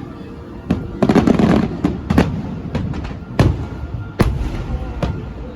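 Fireworks bursting overhead: a string of sharp booms, several seconds apart, each with a short ringing tail. A stretch of crackling comes about a second in.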